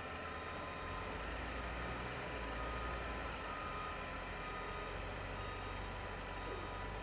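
Dump truck's diesel engine running under load as its hydraulic hoist raises the dump body, the low drone growing stronger about a second in and then holding steady.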